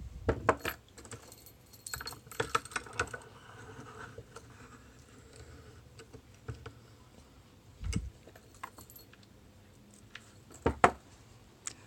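Scattered clicks and light metallic clatter of small padlocks and lock-picking tools being handled: picked up, set down and fitted with a shim. The loudest knocks come near the end.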